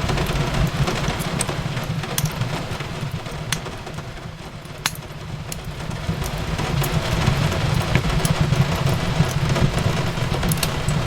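Fireplace crackling, with scattered sharp pops, over a steady rush of rain falling on a window. The rush dips a little around the middle.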